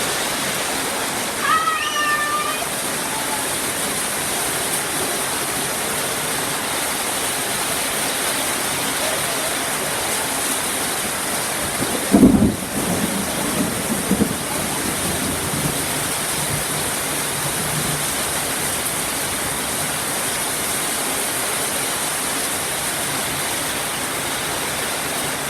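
Steady heavy rain, a continuous hiss. About two seconds in a brief high-pitched voice sounds, and about twelve seconds in a short low rumble stands out as the loudest moment.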